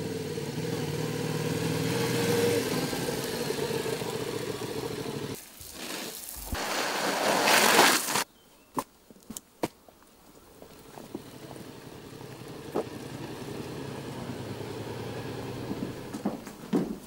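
Motorcycle engine running steadily as the bike rides past, for about five seconds. Then a loud rushing hiss swells for about two seconds and cuts off abruptly, followed by a few sharp clicks and knocks over a faint steady background.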